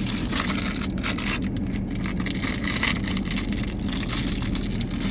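Crinkling and rustling of a blind-box figure's sealed wrapper being handled and squeezed, with many irregular crackles, over a steady low rumble like a car interior.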